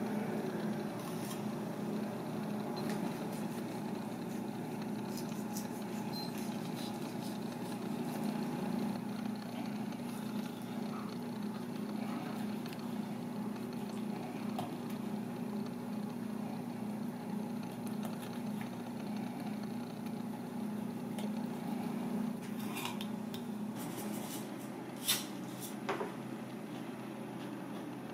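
A steady low machine hum, with faint knife scrapes on fish and two sharp clicks about a second apart near the end.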